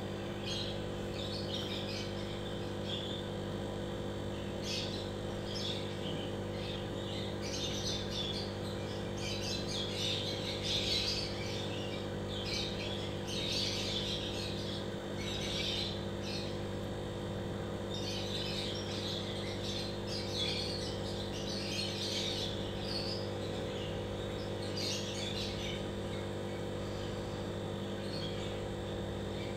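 Steady low hum of an aquarium air pump driving a sponge filter, with bursts of high chirping coming and going over it, busiest in the middle.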